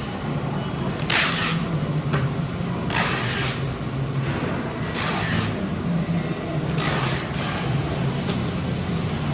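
Workshop machine motor running steadily with a low hum, broken by hissing bursts about every two seconds; the last burst is longer.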